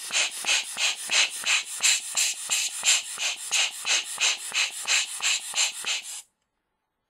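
Orange rubber hand air blower squeezed over and over, giving short hissing puffs of air about three times a second to blow dust out of a camera lens. The puffing stops suddenly about six seconds in.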